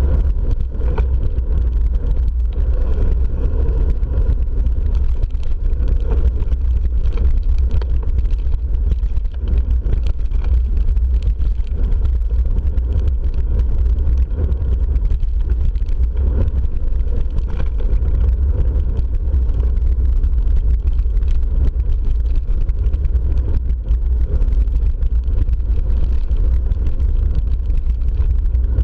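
Mountain bike rolling fast over a gravel track: a steady, loud low rumble from wind buffeting the bike-mounted camera's microphone and tyre noise on the gravel, with scattered small clicks and rattles from the bike.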